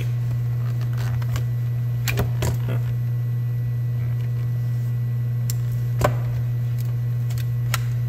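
A utility knife cutting into a hard plastic blister pack, with a few sharp snaps and crackles of the plastic, the loudest about six seconds in, over a steady low hum.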